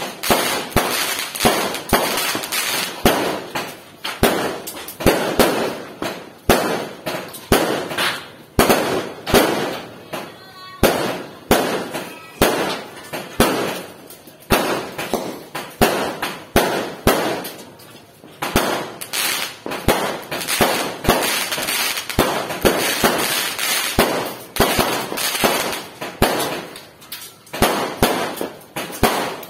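Fireworks going off in a dense, irregular barrage of sharp bangs, often more than one a second, with no let-up.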